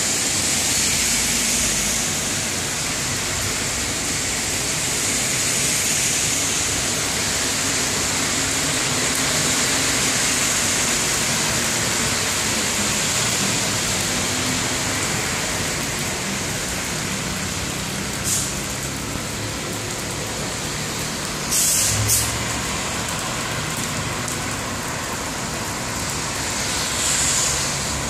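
Heavy rain hissing steadily on wet pavement, with car tyres swishing on the flooded road and engines idling at a traffic light through the second half. A few short, sharp bursts of noise stand out near the end.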